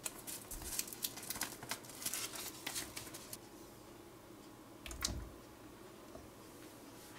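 Paper sachet crinkling and crackling as it is handled and emptied over a mixing bowl, a dense run of sharp crackles. About five seconds in, a soft thump as egg yolks slide off a plate into the bowl.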